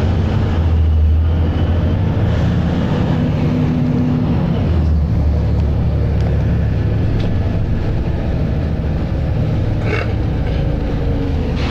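Volvo B7RLE single-deck bus engine running under load with a steady, low, loud hum. The hum eases about halfway through, and a short sharp click comes near the end.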